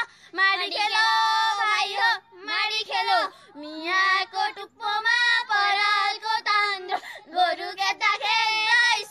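High voices singing a traditional Nepali threshing song in long, bending notes, phrase after phrase with short breaks between.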